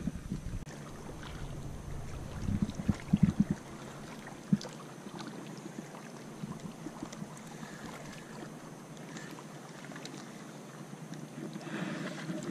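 A fishing rod and spinning reel being handled: a cluster of soft knocks about two to three and a half seconds in and a sharp click a second later. After that, a low steady hiss of wind and lapping lake water with faint ticks.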